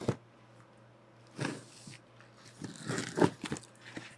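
A cardboard shipping box being cut and torn open along its taped top. There is a sharp tap at the start, then irregular bursts of tearing and crinkling cardboard and tape, the busiest stretch about three seconds in.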